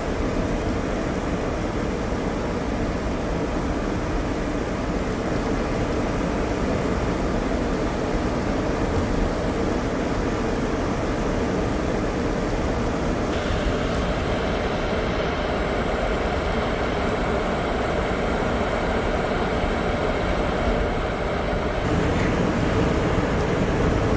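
Steady road and engine noise inside a 2003 Toyota Corolla's cabin as it drives on a snow-covered road. The hiss gets brighter from about halfway through.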